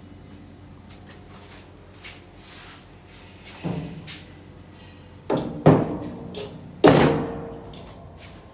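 Four heavy thumps, sudden and with a short ringing tail, coming from about halfway in; the last is the loudest.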